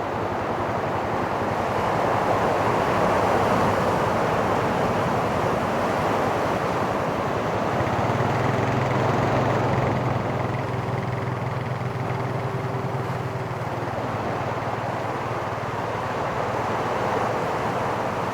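Ocean surf breaking on the beach, a steady wash that swells and eases, with wind on the microphone. A low steady drone joins in for several seconds midway.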